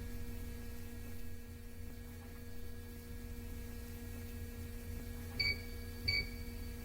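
A steady low hum with two steady tones over it, and two short high beeps, about five and six seconds in.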